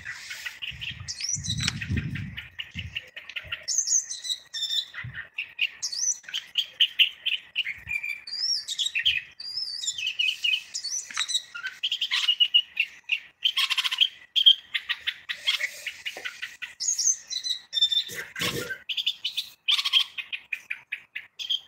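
Caged common bulbul singing: a long run of rapid chattering notes mixed with short whistled phrases, with a low thump about eighteen seconds in.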